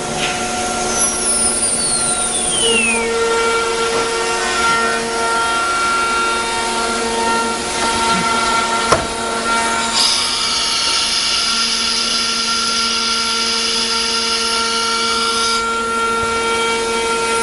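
CNC wood router machinery running over a steady machine hum: a spindle whine falls in pitch over the first few seconds, a sharp click comes about halfway, then a high steady whine runs for about six seconds before stopping.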